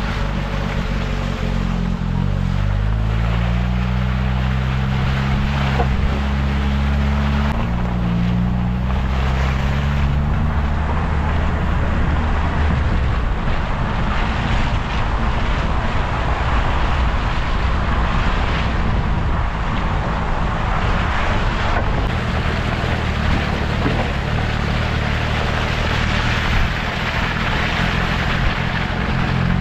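Jeep Wrangler TJ engine running on a wet dirt trail, its pitch rising and falling with the throttle over the first ten seconds or so. A steady rush of tyre and wind noise runs under it and grows stronger later.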